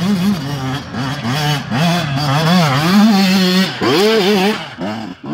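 125 cc two-stroke enduro motorcycle climbing a steep, rough dirt track. Its engine note rises and falls repeatedly under quick throttle bursts, with a short lift off the throttle about four seconds in before it revs up again.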